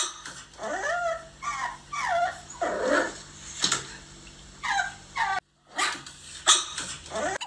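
A pet animal's whining cries: a series of short calls that each rise and fall in pitch, broken off abruptly about five and a half seconds in before more calls follow.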